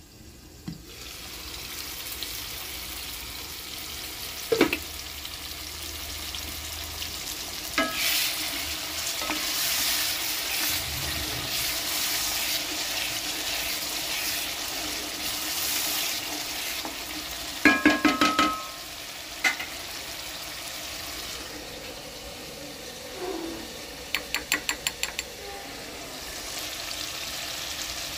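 Food sizzling as it fries in hot oil in a pan, stirred with a utensil that knocks and clinks against the pan now and then. Near the end a quick run of about eight clinks comes in a row.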